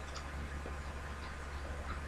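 Tarot cards being handled and laid down on a table: a few faint, scattered soft ticks and taps over a steady low electrical hum.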